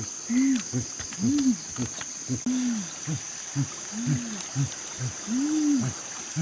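A person making a string of low, ape-like hoots and grunts, some drawn out into rising-and-falling 'ooh' calls, others clipped, a few each second. Under them runs a steady, high-pitched insect drone.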